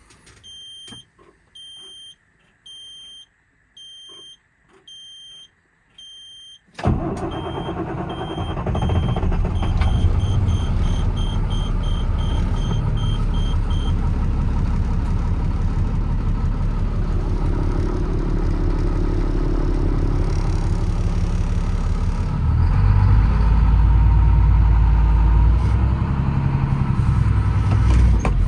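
Cold start of a Caterpillar C7 7.2-litre diesel: a dashboard warning beeps about once a second, then the engine cranks and fires about seven seconds in and settles into a steady diesel idle. The beeping goes on faster for several more seconds, and the engine runs louder for the last few seconds.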